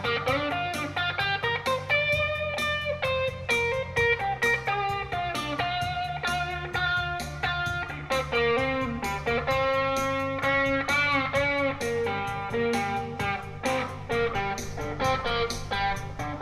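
Amplified guitar playing a blues-rock lead break of single plucked notes, some of them bent, over a steady beat and low bass backing.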